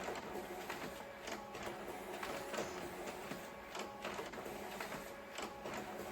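Photocopier running: a steady mechanical whir with frequent irregular clicks and clatter.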